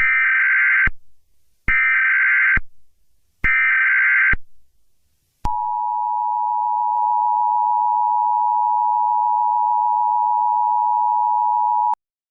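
Emergency Alert System SAME header: three bursts of buzzy data tones, each just under a second long, followed by the steady two-tone EAS attention signal for about six and a half seconds, which cuts off sharply. The sequence announces that an emergency message follows.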